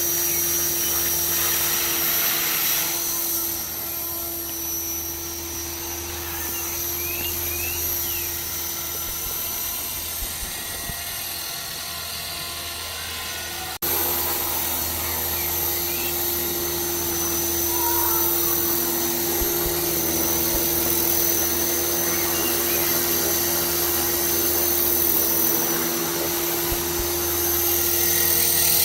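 Electric Align T-Rex 450 RC helicopter running: a steady high whine from the brushless motor and gears over the hum of the spinning rotors. The sound breaks off sharply for an instant about 14 seconds in, then carries on.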